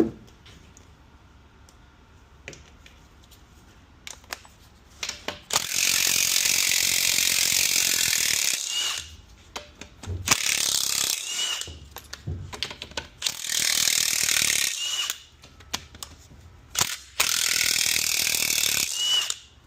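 Handheld power tool run in four bursts of one to two and a half seconds, each ending in a short rising whine, spinning bolts out of a 4R70W automatic transmission as it is torn down. A few light clicks come before the first burst.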